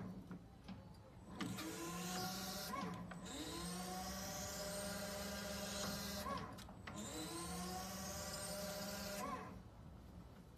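Battery-electric forklift's hydraulic pump motor whining in three runs of two to three seconds each, with short breaks between, as the raised mast and forks are moved; it goes quieter near the end.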